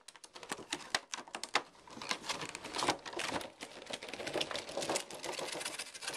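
Goggle packaging being handled and pulled open: a dense, irregular run of small clicks, crackles and rustles.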